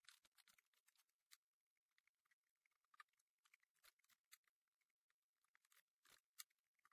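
Near silence, broken by faint scattered small clicks and ticks. A few are slightly stronger about three seconds in and again near the end.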